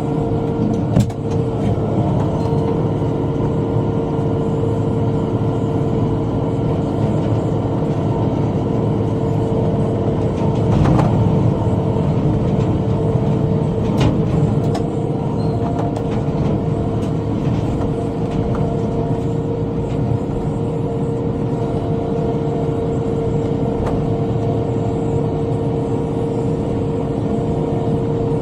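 Tractor engine running steadily under load while driving a rotary cutter (bush hog) through brush, with a constant whine. A few sharp knocks break through, the first about a second in.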